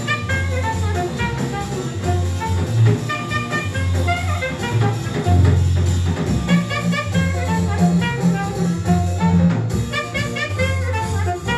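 Jazz with horns, bass and drums playing from a record on a McIntosh MTI100 integrated turntable through B&W 804 floorstanding loudspeakers, heard in the listening room. A bass line of separate low notes runs steadily under the horn lines.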